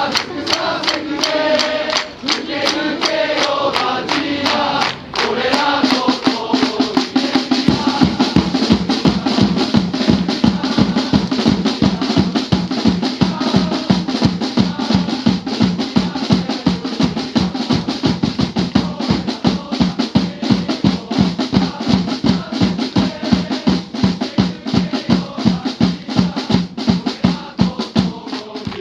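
Football supporters' chant with drums: massed voices singing over drum beats, and from about seven seconds in a fast, even drum beat dominates.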